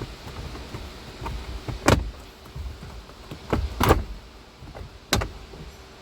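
Sharp knocks and clicks of hands and tools working on the car's interior panels during the blower motor removal. The loudest three come about two seconds in, about four seconds in and near the end, with smaller clicks between them.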